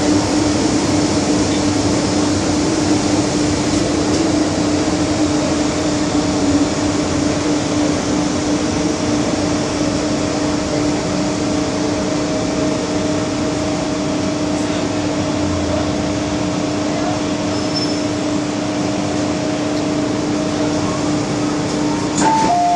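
Interior of an MTR M-Train (Metro-Cammell electric multiple unit) car running through a tunnel and pulling into a station: steady rolling noise with a steady hum. Near the end the two-note door chime starts as the train stops at the platform.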